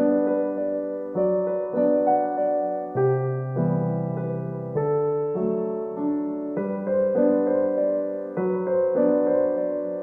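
Soft background piano music: chords struck and left to fade, changing every half second to a second or so.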